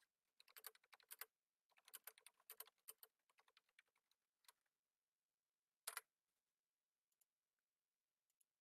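Faint computer keyboard typing: two runs of quick keystrokes over the first four and a half seconds, then a sharper clack about six seconds in.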